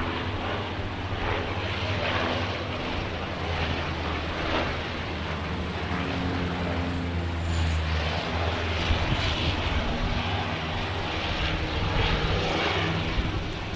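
Propeller engines of a Canadair firefighting water bomber droning steadily overhead, the low hum weakening after about eight seconds.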